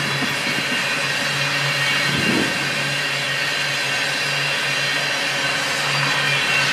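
Tank cars of a freight train rolling past, a steady noise of wheels on rail with a low hum that comes and goes.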